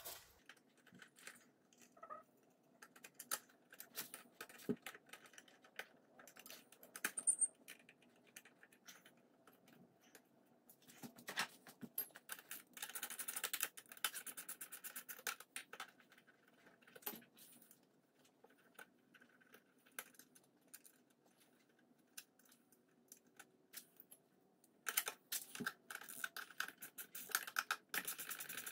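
Ratchet wrench clicking in quick runs as the license plate bolts are tightened, with scattered small metal taps and knocks between the runs. The dense runs of clicks come in the middle and again near the end.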